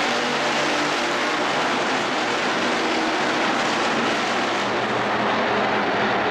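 A pack of IMCA hobby stock cars' V8 engines running on the dirt track, a steady, unbroken engine din.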